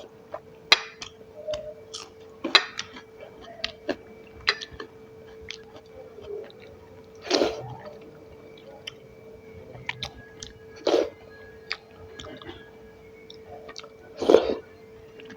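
A person chewing and smacking close to the microphone while eating a meal of rice and curry, with many small wet clicks. Three louder mouth or bite sounds come about halfway through, near three-quarters and near the end. A faint steady hum runs underneath.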